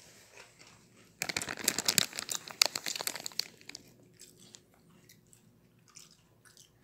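Potato chips crunching and crackling, loud and dense for about two and a half seconds starting about a second in, then scattered softer crunches.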